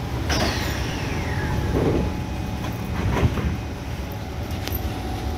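Interior of an SMRT C151 train as the doors slide shut with a couple of knocks, then the train starts to move off with a steady low rumble from its running gear and GTO-chopper traction motors.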